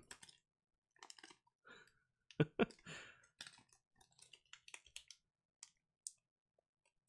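Quiet, scattered clicks, taps and rustles of trading cards and a card pack being handled, with two sharper knocks about two and a half seconds in.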